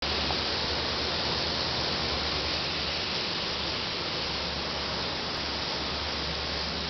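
Heesemann brush sanding machine running steadily, with a constant rushing noise and a low hum underneath, as a raised-panel door is fed through on its conveyor.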